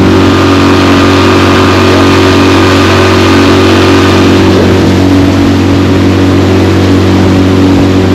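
Boat outboard motor running steadily, a constant low drone with a steady hiss above it.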